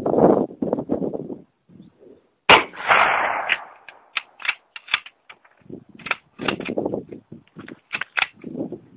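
A single rifle shot from a Mosin Nagant 91/30 firing 7.62x54R, about two and a half seconds in, with a ringing tail of about a second. It is followed by a string of short metallic clicks and clacks as the bolt is worked. Wind noise on the microphone fills the first second or so.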